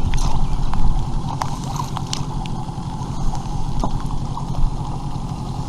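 A 9.8 hp outboard motor running steadily on a PVC inflatable boat, with a few light knocks over the hum.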